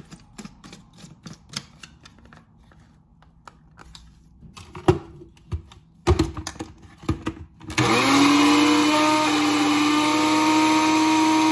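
A few clicks and knocks, then about eight seconds in an electric countertop blender motor starts, rising within a moment to a steady high whir as it purées watermelon chunks into juice with no water added.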